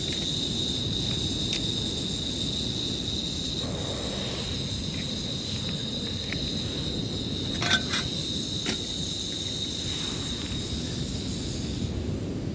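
Insects trilling steadily at a high pitch over a low rushing background. About four seconds in, the gas hiss of a small canister camping stove joins as it is lit, and near eight seconds a few sharp metal clinks as a metal cooking pot is set on the stove's pot supports.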